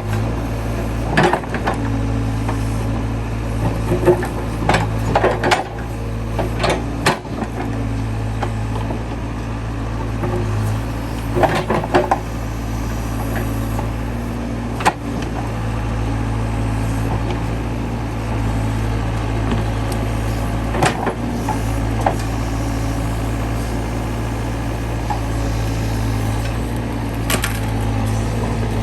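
Case 580C backhoe's engine running steadily, with scattered sharp knocks and clanks, several close together around the fifth to seventh second and again near twelve seconds.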